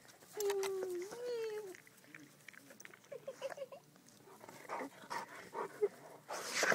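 A dog whining: one drawn-out whine about half a second in, lasting over a second and rising then falling in pitch, then a few short, fainter squeaks around three seconds in. A short rustle near the end.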